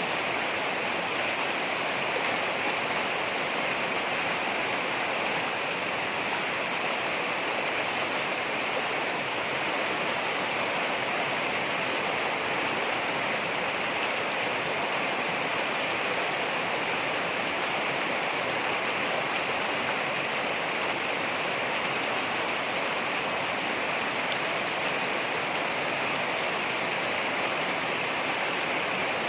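Water rushing over rocks in a stream, a steady unbroken rush.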